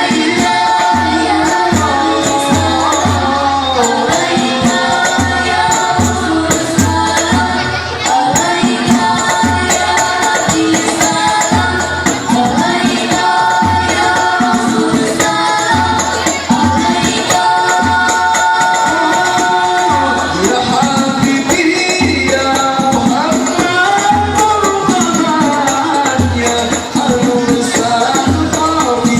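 Hadrah banjari ensemble performing: voices singing a devotional melody over rebana frame drums beating a steady, driving rhythm with jingling percussion.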